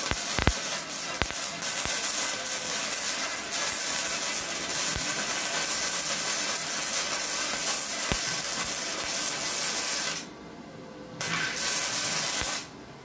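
Flux-core (self-shielded, gasless) wire welding arc from a Redbo MIG-120 running 1.0 mm E71T-GS wire: a steady crackling arc with occasional sharp pops. It breaks off about ten seconds in, strikes again a second later, and stops shortly before the end.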